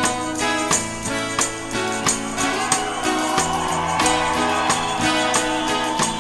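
Live rock band with a symphony orchestra playing an instrumental passage: strummed acoustic guitar and sustained pitched instruments over a steady beat of about three sharp hits a second.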